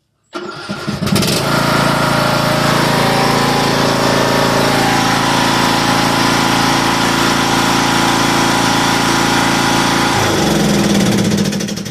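Lawn mower engine starting and then running loud and steady. About ten seconds in its note shifts, and it begins to die down at the very end.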